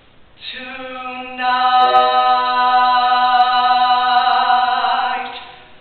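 A male singer holding one long sung note that begins softly, swells about a second in, and fades out near the end: the closing note of the song.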